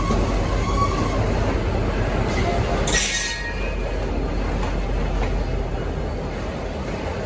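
V/Line N-class diesel-electric locomotive running as it pulls away, a steady engine rumble with train noise. A short burst of hiss sounds about three seconds in, after which the sound eases off slightly.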